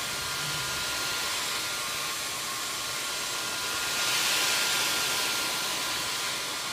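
Electric heat gun running, a steady blowing hiss with a faint steady whine, swelling about four seconds in as the nozzle is swept back and forth close to the hull. It is heating the rotomolded polyethylene kayak hull to soften it so the dent can spring back.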